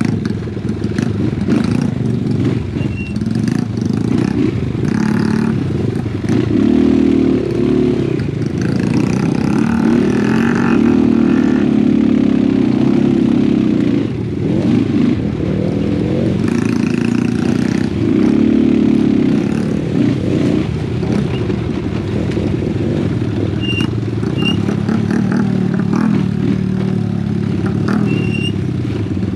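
Honda Wave 125 underbone motorcycle, set up for trail riding, with its single-cylinder four-stroke engine running under load; the revs rise and fall in several swells. Knocks and rattles from the bike run through it.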